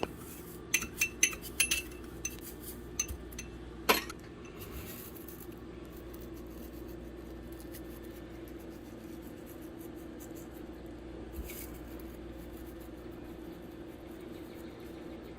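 Small clinks and taps of spice containers and utensils while a herb rub is mixed, a quick run of them with a sharper knock about four seconds in. After that only a steady low hum remains.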